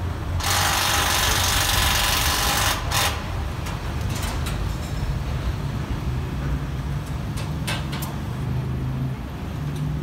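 Truck-mounted crane's engine running steadily with a low hum while it lifts a level-crossing warning pole. A loud hiss lasts about two seconds near the start, with a shorter one at about three seconds, and a few short clicks and knocks follow.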